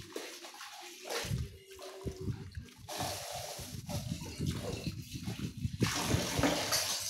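Kitchen tap running into a stainless steel sink while plates are rinsed under it by hand, the water splashing off them. The flow and splashing come and go in strength.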